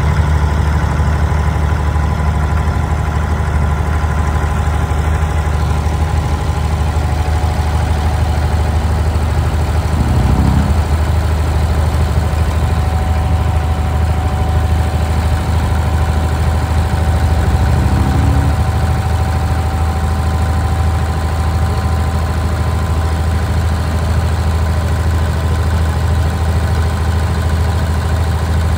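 Boat engine running steadily under way, heard from on board, a low drone with a few steady higher tones. It swells briefly twice, about ten and eighteen seconds in.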